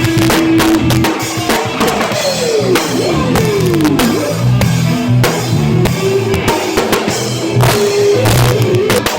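Band music with the drum kit to the fore: a steady run of kick and snare hits. About two to four seconds in, several falling pitch slides run over the drums.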